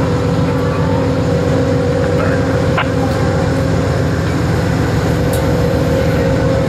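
Amtrak P42DC diesel locomotive running steadily with a constant low rumble and a steady whine, as its train of Amfleet coaches starts to roll out of the station.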